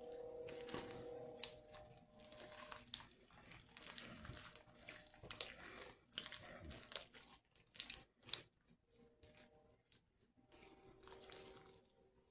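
Soft slime being squeezed and pressed by hand close to the microphone, giving irregular sticky clicks, small pops and crackles that thin out in the second half.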